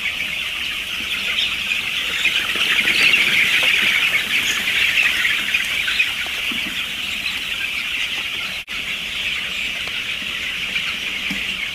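A large flock of young chickens peeping: a dense, continuous chorus of high chirps from thousands of chicks. It briefly cuts out about two-thirds of the way through.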